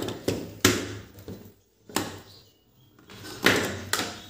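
About four sharp knocks and clatters: one near the start, one about two seconds in, and two close together near the end. They come from the opened metal set-top box and tools being handled on a wooden work table.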